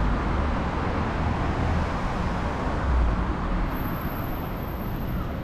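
Street traffic running past: a steady low rumble with a hiss of tyres.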